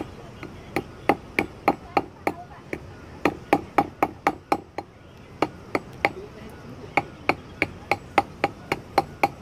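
Small hammer tapping a coil of lead wrapped around a wire against a stone slab, beating it into a fishing sinker. Quick sharp taps, about three a second, in runs with short pauses near the middle.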